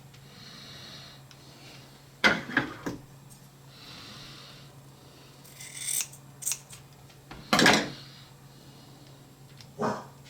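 Scissors snipping fiberglass cloth: several sharp cuts spread across the seconds, with softer handling noise between them.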